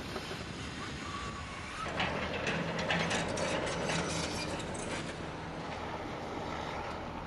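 Clattering and knocking over a steady rumbling background, growing louder about two seconds in.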